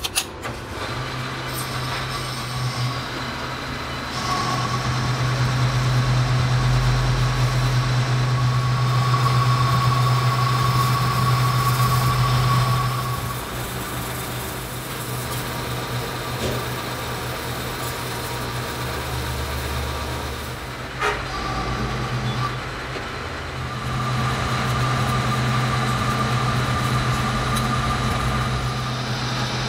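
Manual metal lathe running, with a steady low hum from its motor and drive and a steady high whine as the tool turns a steel part in a four-jaw chuck. The sound changes level a few times, with a sharp click about 21 seconds in.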